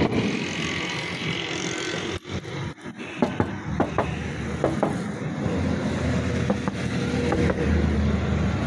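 Knuckles tapping on the steel body panels of a 1997 Suzuki Mehran: a string of short, irregular knocks starting about three seconds in. It is a tap test for body filler under the paint, and the owner finds none.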